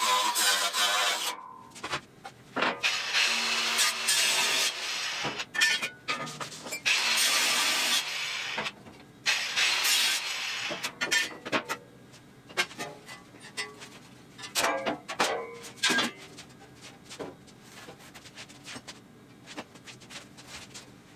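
Cordless angle grinder grinding steel in several long bursts, with short pauses between them. About halfway through the grinding stops, and there are scattered knocks and clanks of steel sheet as the hinged steel tray is lifted and folded.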